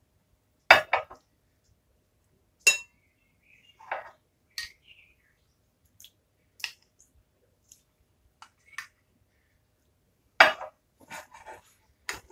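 Metal spoon knocking and scraping against a glass mixing bowl while stirring flour, suet and water into dumpling dough, in irregular clinks, the loudest about a second in and again near ten seconds in.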